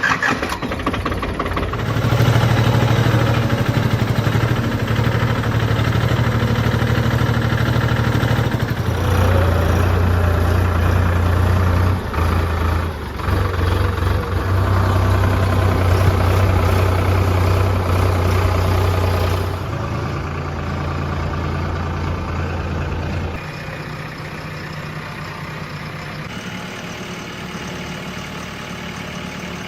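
Heavy diesel engines of earth-moving machinery running steadily. The engine note shifts abruptly several times and grows quieter in the last third.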